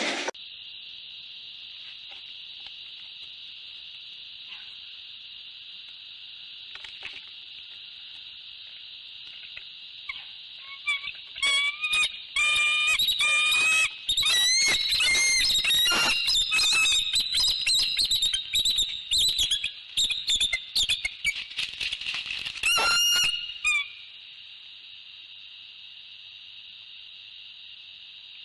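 Bald eagles at the nest: from about ten seconds in, wing beats, branch clatter and a run of high, piping, chattering calls as one eagle lands beside the other, stopping abruptly a few seconds before the end. A steady high drone continues underneath throughout.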